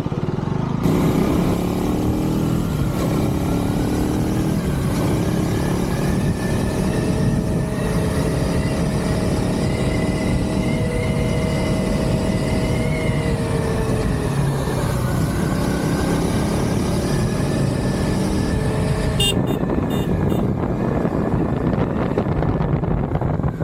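Third-generation KTM 390 Duke single-cylinder engine through its stock exhaust, being ridden: the engine note climbs in pitch through several gear changes in the first few seconds, then holds a fairly steady cruising note.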